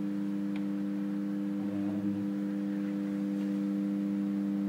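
Steady electrical mains hum from energised switchgear: a few steady low tones held without change, with a faint tick about half a second in.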